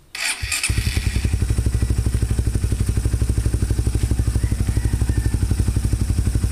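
Suzuki Raider 150's single-cylinder four-stroke engine starting: a short burst of cranking clatter, then it catches under a second in and idles steadily with an even, rapid exhaust beat.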